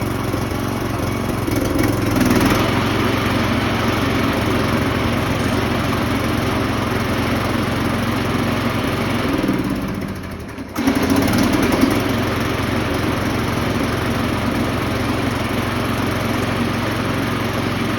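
Small gasoline engine running steadily. About ten seconds in, its speed sags and the sound drops off briefly, then it picks back up and runs on.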